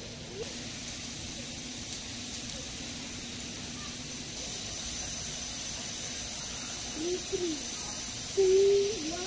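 Steady hiss of water spraying and splashing into a shallow aviary pool, louder from about four seconds in. Near the end come a few short, low cooing calls of a pigeon, the loudest a held coo just before the end.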